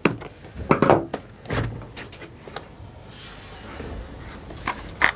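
Clicks and knocks of a screwdriver and hard plastic parts as the two halves of a Numatic Henry vacuum's motor housing are unscrewed and pulled apart, with a scraping rustle about three seconds in as the top half lifts off.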